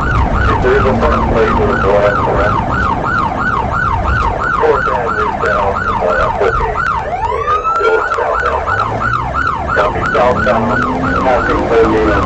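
Police car siren on a fast yelp, about three sweeps a second. About seven seconds in it switches briefly to one slower rising wail, then goes back to yelping, over engine and road noise.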